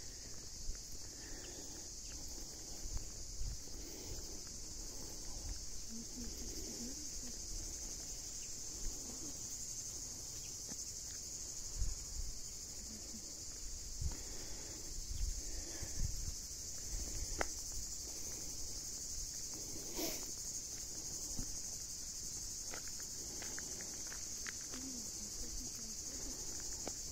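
A steady, unbroken shrill chorus of summer insects, with soft low thumps of footsteps on the asphalt road.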